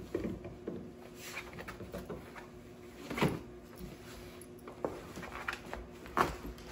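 Dogs moving about on a camouflage fabric dog tent, the husky tugging at it: rustling with scattered knocks and thumps, the loudest about three seconds in and again about six seconds in.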